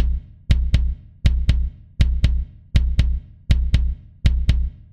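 Background music: a beat of low drum hits in pairs, a pair about every three-quarters of a second, each with a deep booming bass under it.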